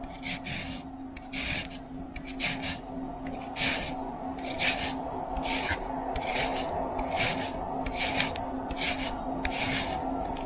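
Lemon peel being zested on a KitchenAid etched fine grater: a steady series of short scraping strokes, about one and a half a second, as the lemon is pushed hard across the fine etched teeth.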